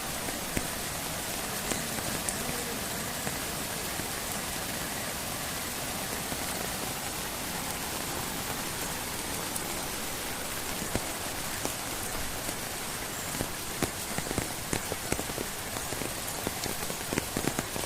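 Steady rain falling, with single louder drops striking close by that come more often in the last few seconds.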